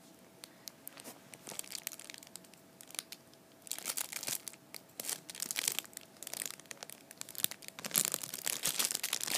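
Clear plastic packaging crinkling as fingers press and shift it, in scattered crackles that become busier about four seconds in and louder near the end.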